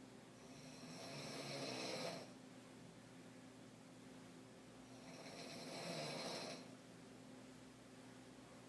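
A woman snoring while asleep on her back: two snores about four seconds apart, each building up over a second and a half and then cutting off sharply.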